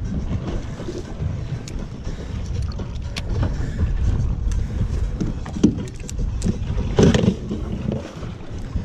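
Steady low rumble of wind and water around a small boat at sea, with scattered clicks and knocks as a fishing reel is cranked on a hooked fish. A louder knock comes about seven seconds in.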